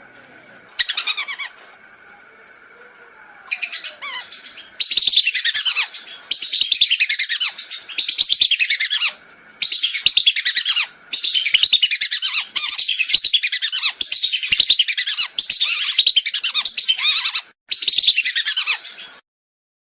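Whistling duck (belibis) calls used as a hunting lure: bursts of rapid, high, descending whistled notes, each burst about a second long, repeated almost without pause from about five seconds in. A faint steady tone lies underneath in the first few seconds, and the calls cut off just before the end.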